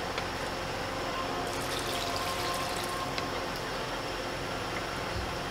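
A wooden spatula stirring watery chicken and potato curry in a pot, the liquid sloshing, with a few light knocks against the pot, over a steady hiss. The sloshing is strongest around the middle.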